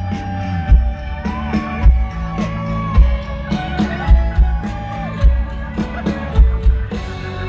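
A live band playing: a sustained, sliding melody line over bass and guitar chords, with a heavy kick drum striking about once a second.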